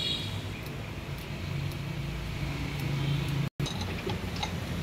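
A vehicle engine running in the background, a steady low hum that swells toward the middle. After a brief cut, a few light metallic clicks as the diesel feed pump is handled in the vise.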